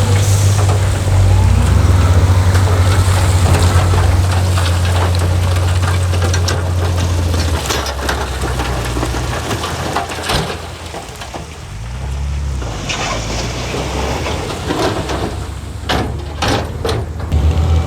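Heavy diesel engine of earthmoving machinery running, with scattered sharp knocks and clanks. The engine drops back about seven or eight seconds in and comes up loud again near the end.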